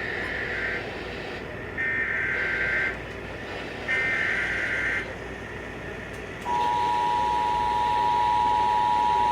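Emergency Alert System SAME header: three warbling data-tone bursts of about a second each, about a second apart. Then, about six and a half seconds in, the steady two-tone EAS attention signal starts. Together they open a broadcast flood watch alert.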